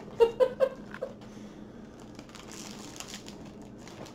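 A few short voice sounds in the first second, then crinkling and rustling of the clear plastic protective film on a rolled diamond-painting canvas as it is handled and lifted.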